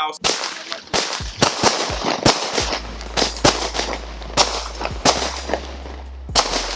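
Pint-Sized Powerhouse consumer firework cake firing a rapid volley of shots, two or three sharp bangs a second with crackling between them.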